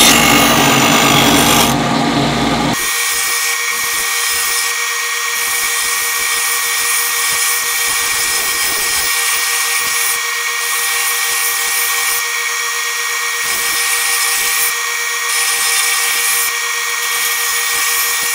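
Grinding wheel of a MagnaMatic Mag8000 blade sharpener running against the edge of a curved steel mulching mower blade, sharpening it. Nearly three seconds in the sound changes abruptly: the low, heavy grind drops away, leaving a thinner, higher grind with a steady whine.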